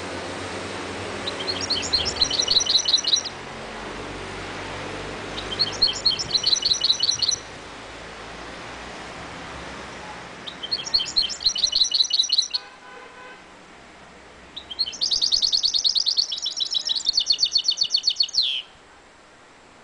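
Caged goldfinch × canary hybrid (mule) singing four fast trilled song phrases. The last phrase is the longest and ends in a downward slur.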